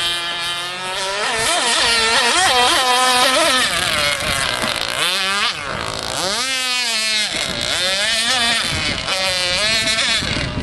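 Radio-controlled model boats racing, their small motors whining and rising and falling in pitch as they throttle up and back off.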